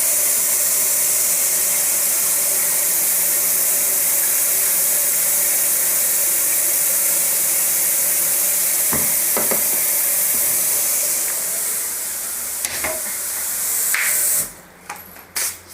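Steady, loud hiss of a pot of instant noodles cooking on the stove, with a few sharp clicks of utensils against the pot. The hiss stops abruptly about fourteen seconds in, leaving only scattered clicks.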